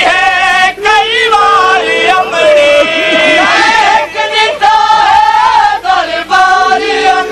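A Punjabi noha, a Shia lament, sung without instruments, the voice holding long, wavering notes between short breaths.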